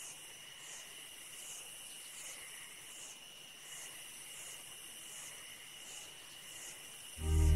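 Insects chirping in a faint, steady, even rhythm, about one pulse every three quarters of a second, over a high hiss. Music comes in loudly near the end.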